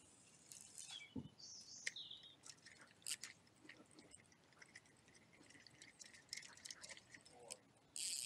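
Faint outdoor ambience with a few short bird chirps and scattered light clicks and rustles, and a brief louder rustle near the end.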